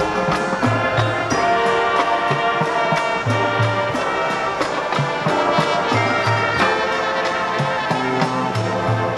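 High school marching band playing: brass chords over a repeating low bass figure, with regular percussion hits.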